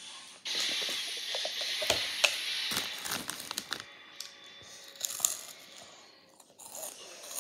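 Thin plastic water bottle crinkling and crackling as it is gripped and squeezed, a dense run of sharp crackles lasting about three and a half seconds, then only a few quieter clicks.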